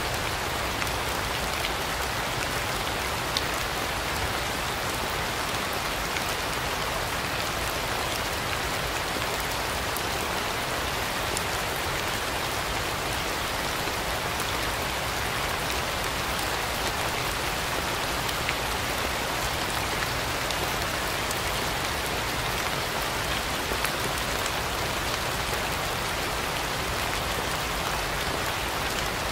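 Steady, even rainfall, with single drops ticking out here and there above the constant patter.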